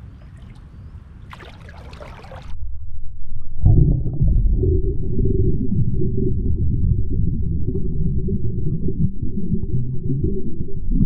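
A short splash of water about a second in, then, from about three and a half seconds, the loud, muffled low rumble and gurgle of water heard through a submerged GoPro action camera.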